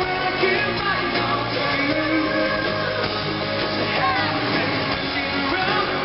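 Live pop-rock band playing at full volume, guitars with a male voice singing the melody, heard from the crowd in an arena with a dull, muffled top end.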